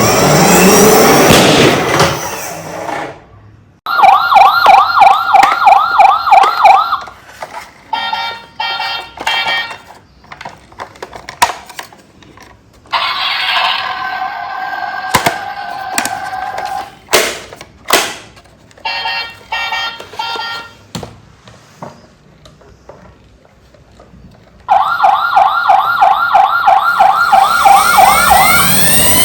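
Electronic siren sounds from battery-powered toy emergency vehicles: a fast warbling siren, then bursts of rapid beeping and a steadier multi-tone siren, with scattered sharp clicks, and the warbling siren again near the end. A loud rushing swell comes first.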